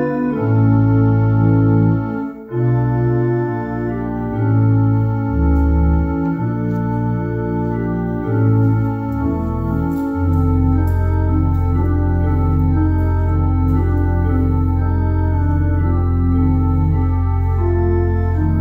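Two-manual electronic church organ playing slow sustained chords over low pedal bass notes, with a brief break a couple of seconds in. From about ten seconds in, one low pedal note is held steady while the chords above it change.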